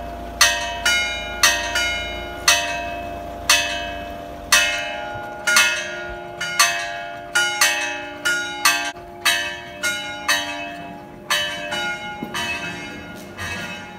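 Church bells in an open belfry ringing, several bells of different pitch struck over and over, about one or two strikes a second, each stroke left to ring on. The strikes grow quieter near the end and stop.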